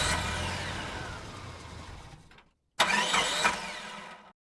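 Engine noise in two bursts, each starting suddenly and fading away with sweeping pitch; the second cuts off abruptly into silence.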